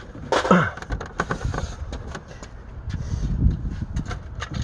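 Scattered clicks, knocks and clinks of hand tools and metal fittings being worked on a hand-control linkage at a car's brake pedal, with a low rumble of handling near the middle.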